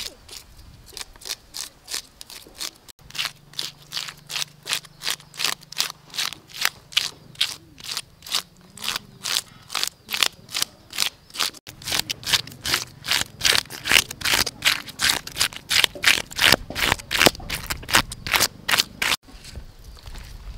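A fish scaler scraping the scales off a whole fish on a wooden chopping block, in quick rhythmic strokes of about three to four a second.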